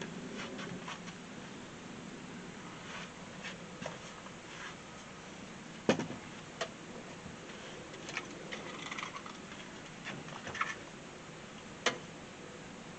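Scattered light clicks and knocks from fishing tackle being handled aboard a boat, with two sharper clicks about six and twelve seconds in, over a low steady hiss.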